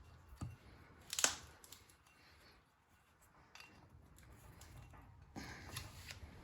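Faint clicks and scraping of small metal parts being handled as a nut is fitted onto the wheel's axle post, with the sharpest click about a second in.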